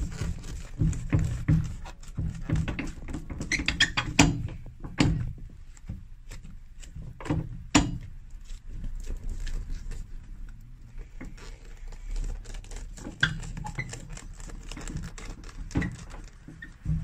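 Hands pressing and patting a new leather sole down onto a freshly glued shoe: an irregular run of soft pats and knocks, with a few sharper taps around four and eight seconds in.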